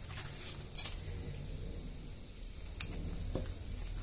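Light handling of a craft-foam piece being folded in the fingers, with two short sharp clicks about two seconds apart over a low steady room hum.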